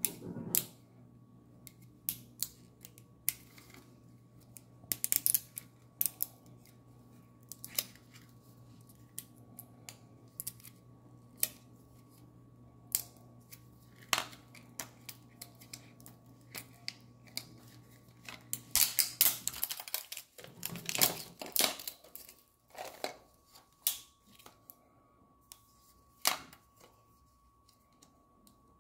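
Fingernails clicking, tapping and scraping on a hard plastic Magic Mixies Mixlings toy cauldron as its lid is pried open, in scattered sharp clicks with a busier stretch of rubbing and clicking about two-thirds through. A steady low hum runs under it and stops about two-thirds through.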